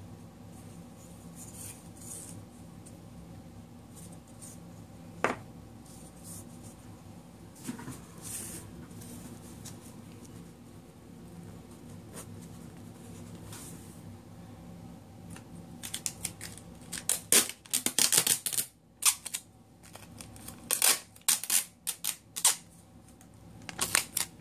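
Hands stacking and taping empty cardboard duct tape rolls: a low room hum with a single knock about five seconds in, then a run of loud, short rasping noises over the last eight seconds.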